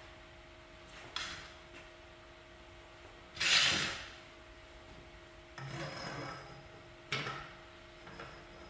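A tall telescoping steel underhoist stand being set in place, its column slid up by hand: several separate metal rubbing scrapes, the loudest about three and a half seconds in, over a faint steady hum.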